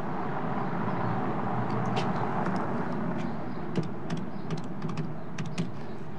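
Steady street traffic noise. From about two seconds in comes a string of light, irregular clicks from a public payphone being handled and its buttons pressed to dial.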